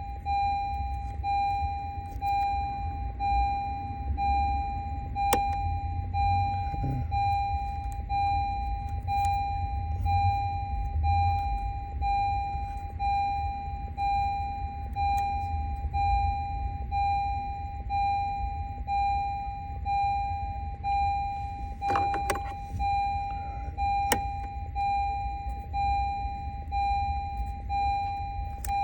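A 2020 Honda Accord's warning chime dinging in a steady repeating beep about once a second, over a low rumble, with a few faint clicks.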